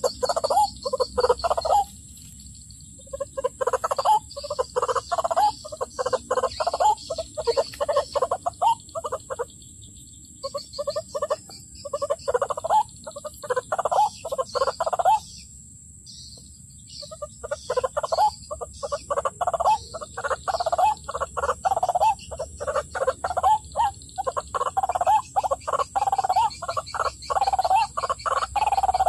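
White-breasted waterhen (ruak-ruak) calling: long runs of rapid, repeated croaking notes, broken by two short pauses.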